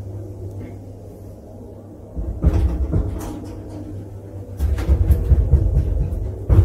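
An elevator car running with a steady low hum. Two spells of low rumbling and clunking come about two seconds in and about four and a half seconds in, and a sharp clack comes near the end.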